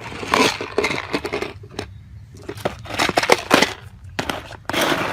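Irregular clattering: a rapid series of sharp knocks and clicks mixed with scraping.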